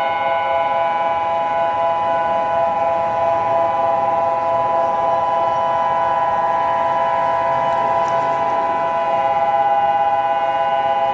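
Emergency alert alarm tone: several steady pitches held together as one unbroken, loud chord.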